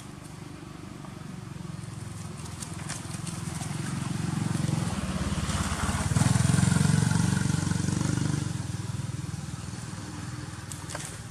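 A motor vehicle passing by: its engine grows louder over the first six seconds or so, peaks, and fades away again.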